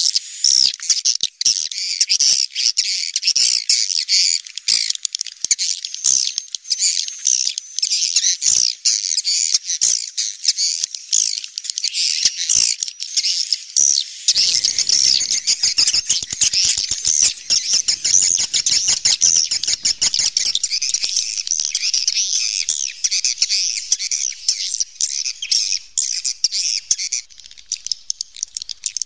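A crowd of swiftlets calling: a dense, continuous chorus of high, twittering chirps. About halfway through, a run of rapid clicks sounds under the chorus for several seconds.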